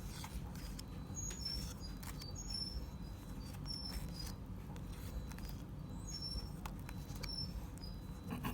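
Trading cards being handled and flicked through, soft rustles and clicks, with short high chirps recurring about once a second.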